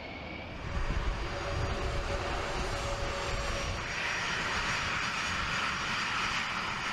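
A-10 Thunderbolt II jet aircraft's turbofan engines running: a steady rushing noise over a low rumble, with a faint steady whine in the first few seconds and a brighter hiss coming in about four seconds in.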